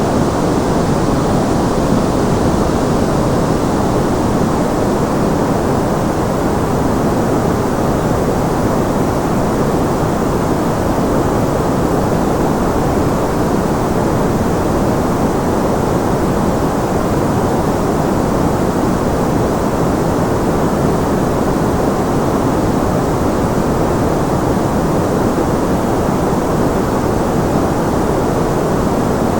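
Steady masking noise of the kind sold as white noise for tinnitus: an even, unchanging rushing hiss, heaviest in the low and middle range and thinner in the treble.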